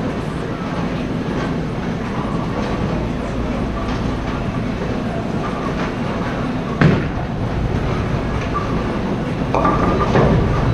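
Bowling alley din: a steady low rumble of balls rolling down the lanes, with a sharp crack about seven seconds in and a louder clatter near the end.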